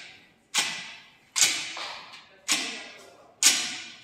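Pec deck (butterfly) gym machine clanking with each rep: four sharp metallic clangs, about one a second, each ringing out briefly.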